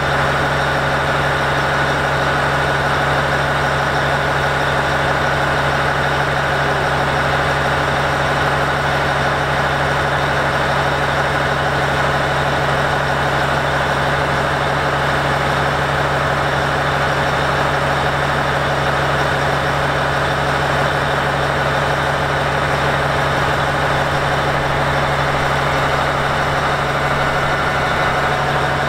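Volvo R100E rigid dump truck's diesel engine idling steadily.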